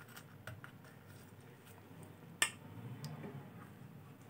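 Metal spoon spreading jaggery syrup over flatbreads on a plate, giving a few faint clicks as it touches the plate, the sharpest about two and a half seconds in.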